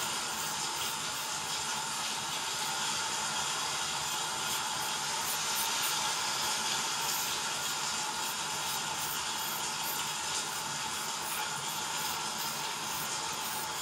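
A steady, even hiss with no breaks or changes in level.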